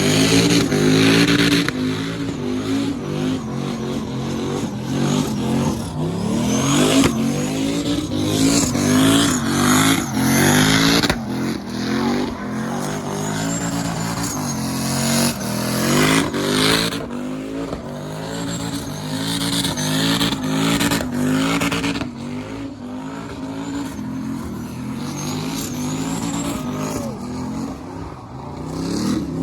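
Truck engine revving again and again, the pitch climbing and dropping repeatedly.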